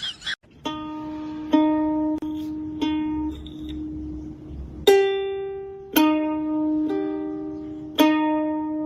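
Background music played on a plucked string instrument: a slow line of single notes, each struck sharply and left to ring out.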